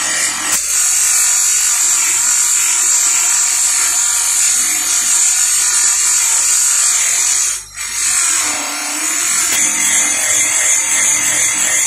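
Small brass oil can held against the spinning wheel of a bench grinder, giving a steady high hissing whir of metal on the wheel over the motor's hum. The sound dips sharply for a moment about eight seconds in, then carries on.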